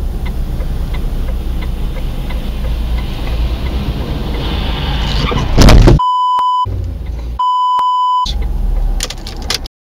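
Car running in traffic, heard from inside the cabin, with faint even ticking. About five and a half seconds in comes a sudden loud burst of sound. Two steady 1 kHz censor bleeps follow, each under a second, and the sound cuts off abruptly just before the end.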